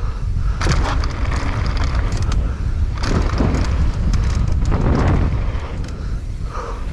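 Mountain bike rolling fast down a dirt trail: wind buffeting the microphone and tyre noise on the dirt, with irregular sharp rattles as the bike hits bumps.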